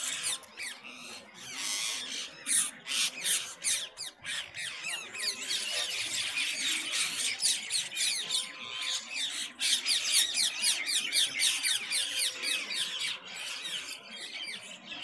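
A flock of small birds chirping and squawking together in a dense, continuous chorus of overlapping high calls, thickest in the second half.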